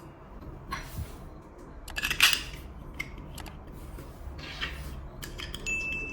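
Metal clinks, scrapes and sharp clicks from handling and working thin tin-can metal. The loudest scrape comes about two seconds in.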